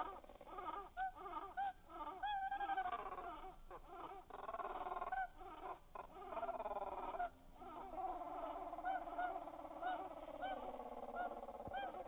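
Arctic terns calling, played slowed down so the calls become low, drawn-out arched notes, rising then falling in pitch. The notes repeat about twice a second, several birds overlapping.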